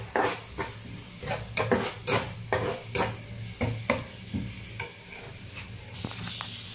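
Spatula scraping and knocking against a non-stick frying pan while onions and green chillies are stirred in sizzling oil, about three strokes a second. About six seconds in the stirring stops and the steady sizzle of the frying onions carries on alone.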